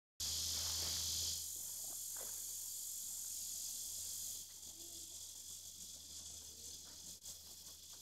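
A steady, high-pitched chorus of insects droning in woodland. It drops in level about a second in and again about halfway through.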